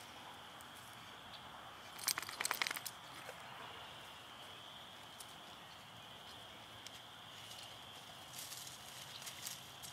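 Dogs moving about on sand and dry grass: a brief cluster of crackling rustles about two seconds in, and a few lighter rustles near the end, over a faint steady high hum.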